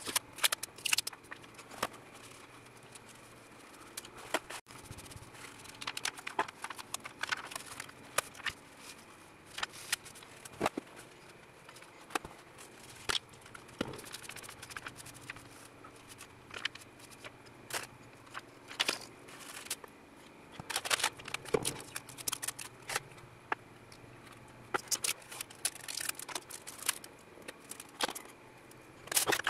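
Irregular crinkling, crackling and clicking of a plastic-film solder-paste stencil and a paper towel as they are handled, peeled and wiped on a countertop.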